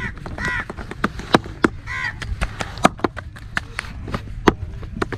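Hands slapping roti dough flat between the palms for the tandoor: sharp, irregular slaps at about four a second. A crow caws about three times, near the start and again around two seconds in.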